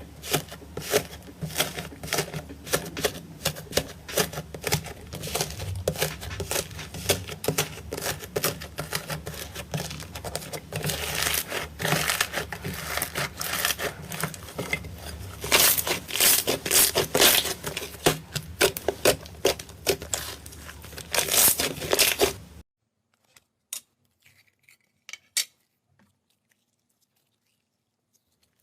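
Slime being squeezed and worked by hand, making dense, rapid crackling and popping clicks that grow louder about halfway through. The sound stops abruptly near the end, leaving near silence with a few faint clicks.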